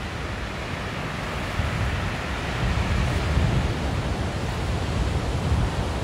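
Sea surf washing onto a beach, a steady rush of waves that swells slightly a couple of seconds in, with wind buffeting the microphone as a low fluttering rumble.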